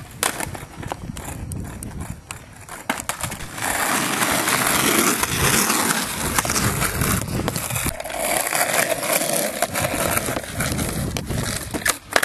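Skateboard wheels rolling on asphalt, with clacks and knocks from the board. The rolling noise gets much louder about three and a half seconds in.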